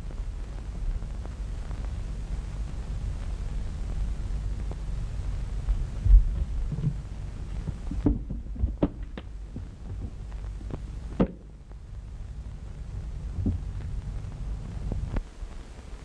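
Steady low hum and rumble of an early 1930s film soundtrack, with one heavy thump about six seconds in and a scatter of small knocks and clicks between about eight and eleven seconds.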